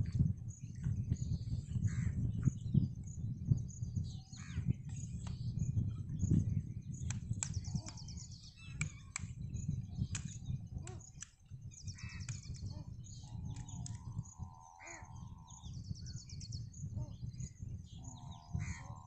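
Crows cawing: runs of harsh calls about two thirds of the way through and again near the end. Underneath is a steady low rumble with scattered clicks and knocks.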